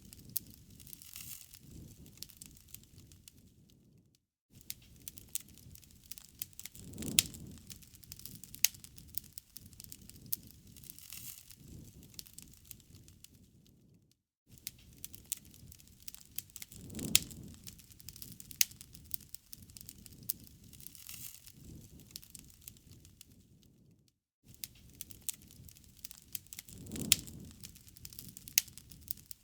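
A wood campfire crackling, with sharp pops and snaps over a low hiss and a soft low swell of the flames about every ten seconds. The sound drops out briefly three times, about ten seconds apart.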